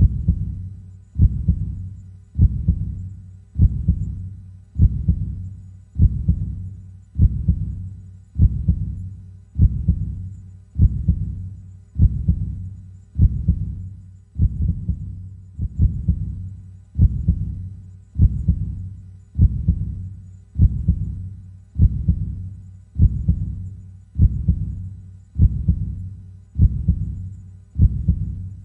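Heartbeat, slow and steady: low, dull thumps repeating evenly at about 50 beats a minute.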